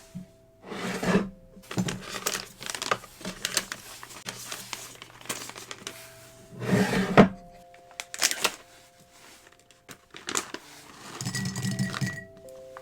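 Small hard plastic parts clicking and clattering as they are handled, in irregular bursts with the loudest clusters about a second in, around seven seconds and near the end.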